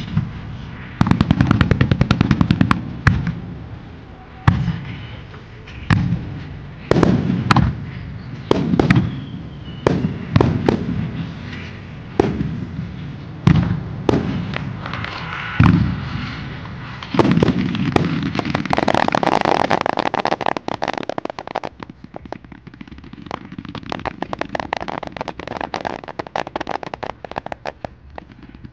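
Starmine fireworks: aerial shells bursting one after another, each a sharp bang followed by a low rumble, about one a second. From a little past halfway the bangs give way to dense crackling of many small pops.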